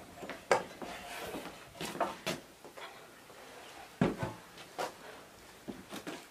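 Household things being handled and set down: a metal basin and a wooden box, giving a string of scattered knocks and clatters, the loudest a heavy thud about four seconds in.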